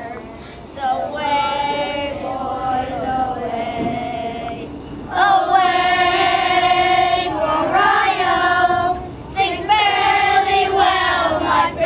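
A group of children singing together in long held notes, three phrases with short breaths between; the singing grows louder about five seconds in.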